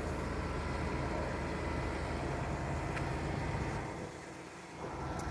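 Bus engine running with a steady low rumble that fades away about four seconds in.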